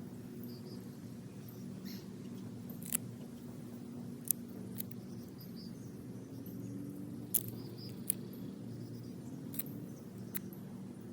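Dogwood kindling and shavings burning in a small stove, popping and crackling about seven times at irregular intervals over a steady low hum.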